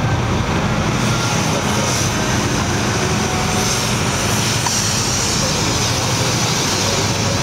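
High-pressure decontamination spray jet hissing as it blasts onto a truck's container, over a steady low machine drone. The hiss grows stronger about a second in.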